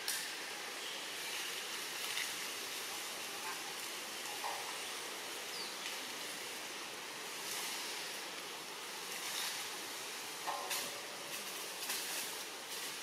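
Steady outdoor background hiss with a few faint clicks and knocks scattered through it, and a couple of faint short calls.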